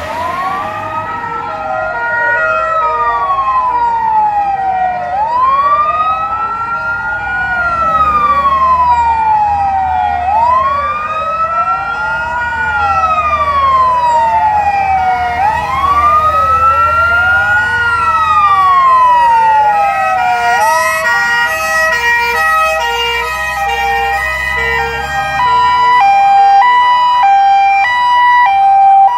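Wailing sirens of an emergency convoy of police motorcycles and fire-brigade vehicles, several slow rising-and-falling sweeps overlapping and growing louder as they approach. About two-thirds of the way in, stepped siren tones jumping between fixed pitches take over, over a low rumble of engines.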